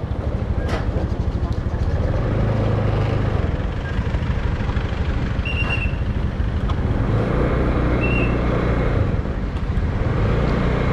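Small motor scooter's engine running steadily at low speed, with road noise. Two short high chirps come through, one about halfway and one a few seconds later.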